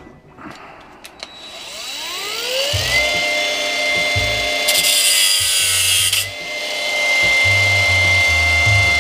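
A handheld electric power tool's motor spins up with a rising whine over about three seconds, then runs at a steady high pitch. A harsh hiss of it cutting cuts in for about a second and a half in the middle, and the motor runs on afterwards.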